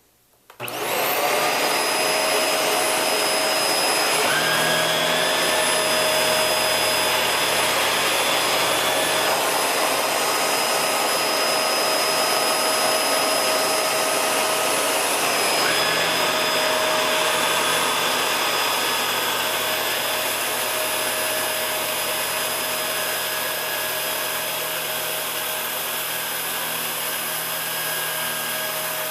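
Shark Rotator vacuum cleaner switched on about half a second in and running steadily with a motor whine as it vacuums up test spills of sugar, beans and rice; the pitch of its whine shifts a couple of times.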